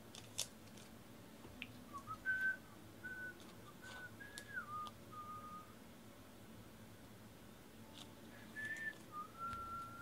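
A person whistling a tune softly in short, steady notes that step up and down, in two phrases a few seconds apart. Light clicks sound here and there.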